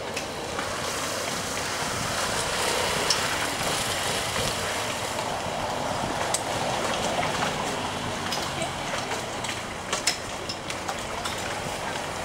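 A steady rushing hiss, with a few short, sharp knocks scattered through it.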